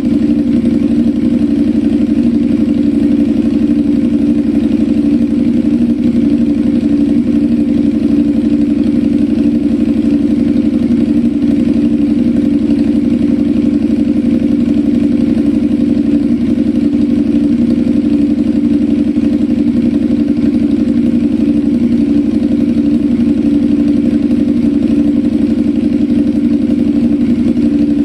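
CFMoto 450NK's parallel-twin engine idling steadily through an Austin Racing slip-on exhaust, with no revving.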